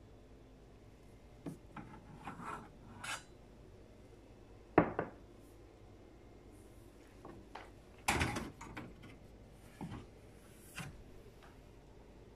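Scattered clicks, knocks and rubbing of objects being handled, with one sharp knock about five seconds in and a short clatter about three seconds later.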